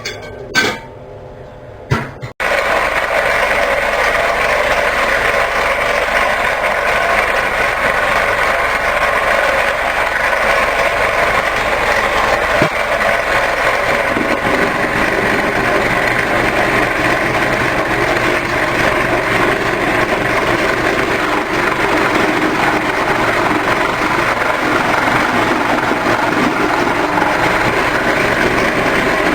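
A woodworking power tool starts running about two seconds in, after a few short clicks and knocks, and then runs steadily.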